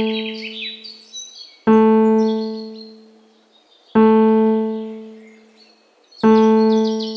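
Relaxation music: one low keyboard note struck three times, about every two seconds, each left to ring out and fade. Birds sing quick trills of high descending chirps over it near the start and again near the end.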